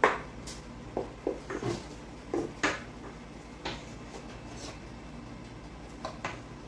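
Wooden spoon knocking and scraping against a stainless steel mixing bowl while stirring cake batter, in irregular clunks. The loudest clunk comes right at the start and a quick pair comes about six seconds in.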